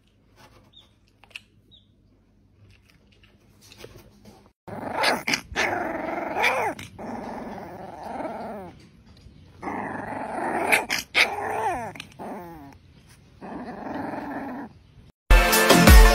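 Rottweiler puppy play-growling in several rough bouts while mouthing a finger, after a few seconds of near quiet.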